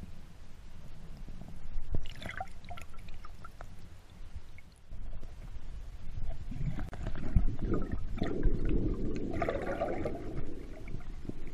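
Sea water sloshing and gurgling, heard underwater as a swimmer goes under: a burst of bubbles about two seconds in, then a low churning rumble from about five seconds on with more bubbling.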